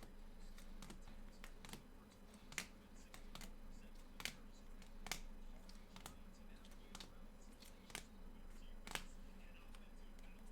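Scattered light plastic clicks and taps, irregular and roughly a second apart, as trading cards in hard plastic holders are handled and set down on a table.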